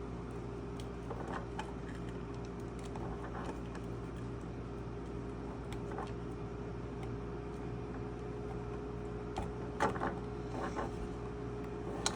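Faint scattered clicks and rustling of wire connectors being pushed onto a circuit board's header pins, with a few sharper clicks about ten seconds in, over a steady electrical hum.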